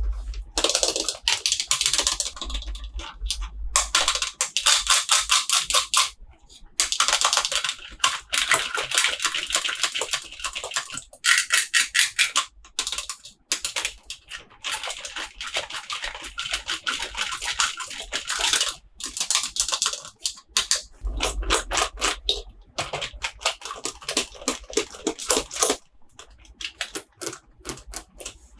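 Packaging being handled and opened: a dense, uneven crackle of rapid clicks and rustling, in spurts with short pauses, with a low thump of handling about two thirds of the way in.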